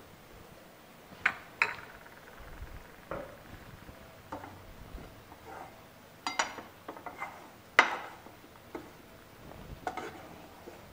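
A metal spoon clinks and scrapes against a metal kadhai while stirring and pressing a dry, crumbly flour-and-sesame mixture. There are irregular sharp knocks and short scrapes about once a second.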